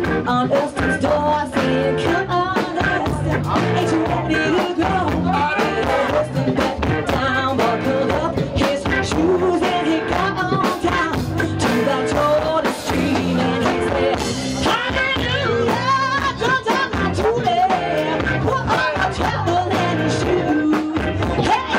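Live rock band playing: electric guitars over a drum kit, steady and loud.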